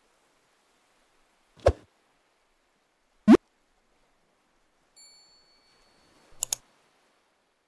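Short end-screen sound effects: a soft thump, then a quick rising whoosh, a bell-like ding, and a sharp mouse click about six and a half seconds in.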